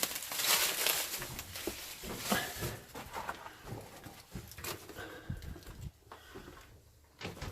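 Footsteps crunching and scuffing on loose rock and gravel, irregular and closely spaced, growing sparser near the end.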